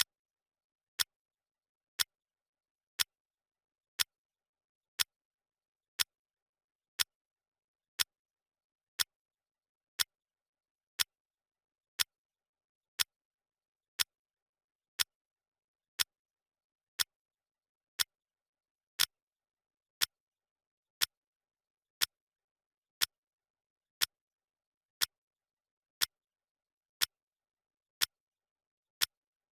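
Clock-ticking sound effect marking a countdown timer: one sharp tick every second, evenly spaced, with silence between ticks.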